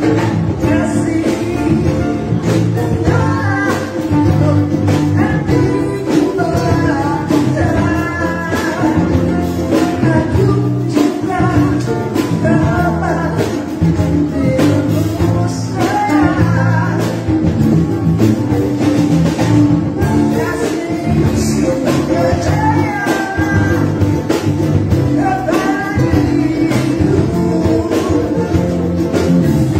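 Live band playing a song: a woman sings the lead over acoustic guitar, keyboard, electric bass and a hand drum, with steady drum hits underneath the melody.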